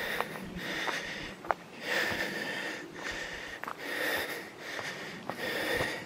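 A person breathing heavily and audibly, in and out about once a second, with a slight whistle on each breath, and a few light clicks and snaps from steps on the trail.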